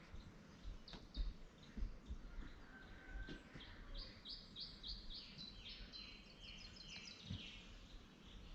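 A small songbird singing faintly: a short chirp, then a quick run of about a dozen high, down-slurred notes.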